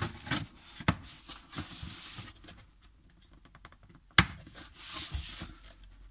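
Cardboard shipping carton being opened by hand: packing tape tearing and flaps scraping and rustling, with scattered clicks and a single sharp knock about four seconds in.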